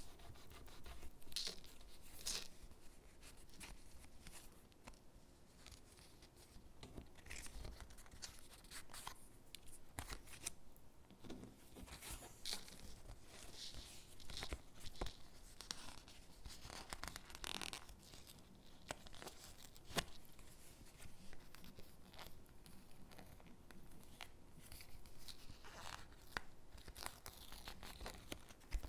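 Stickers being peeled off their backing sheet and pressed onto paper gingerbread cutouts: soft, irregular peeling and paper rustling with small taps and clicks.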